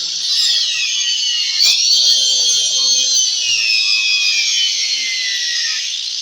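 Angle grinder running under load on a speaker box, a high whine whose pitch sags and then climbs back several times as the tool bites and eases off. There is a sharp click about a second and a half in.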